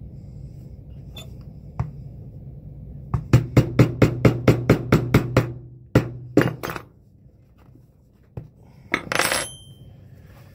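A mallet strikes a cheap leather-craft hole punch to punch stitch holes through a leather boot midsole. About three seconds in comes a quick run of about a dozen sharp knocks, about five a second, then a few more single strikes after a pause, and a short rattle near the end.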